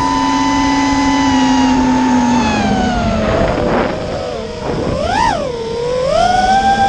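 Electric motor and propeller whine of an FPV model aircraft in flight. The pitch sags as the throttle eases off over the first few seconds, swoops up and back down about five seconds in, then holds steady a little higher near the end.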